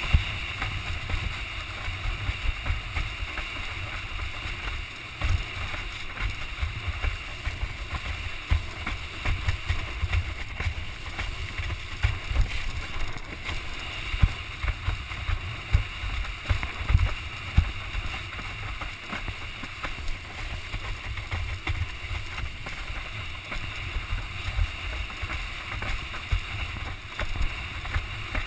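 Wind buffeting the camera microphone in irregular low gusts over a steady hiss of a windsurf board running through choppy water.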